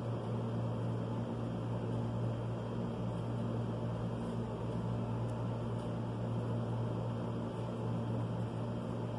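Steady low hum with a faint hiss, unchanging throughout, like a machine or fan running in the room.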